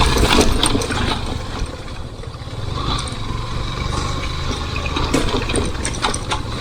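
Motorcycle engine running as the bike crosses rough, wet trail ground, with water splashing and several sharp knocks.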